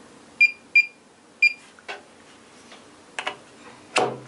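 Retekess TD172 pager base's keypad giving three short high beeps as keys are pressed to enter pairing, followed by plastic clicks and a knock as a pager is pushed into its charging slot to pair it.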